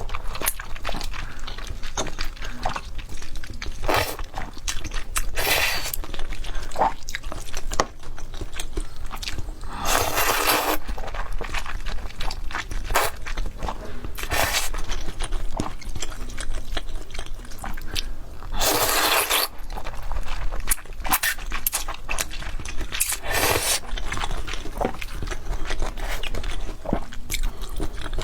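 Close-miked eating of luosifen: crisp crunching and chewing of fried tofu skin, with a few longer rushing sounds, around ten and nineteen seconds in, that are typical of noodle slurps.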